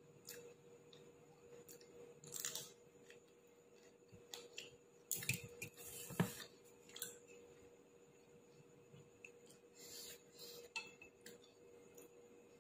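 Eating at a table: scattered clinks and rustles of a plate and food being handled, with some chewing, over a faint steady hum. The loudest handling sounds come about halfway through.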